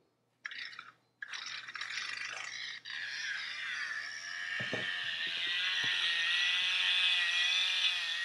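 Chainsaw sound effect from a novelty app, played through an iPod Touch's small built-in speaker: a short burst, a brief break, then a continuous buzzing rattle with a wavering engine pitch that grows louder toward the end.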